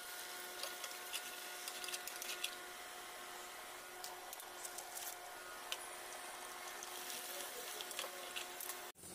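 Hot oil in a wok sizzling faintly with many small crackles as puffed crisps fry, over a faint steady hum. The sound cuts off abruptly just before the end.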